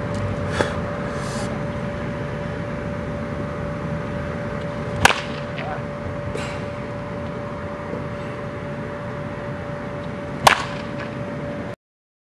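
Baseball bat striking pitched balls in batting practice: two sharp cracks of contact about five and a half seconds apart, the first about five seconds in, with fainter clicks between, over a steady faint hum. The sound cuts off just before the end.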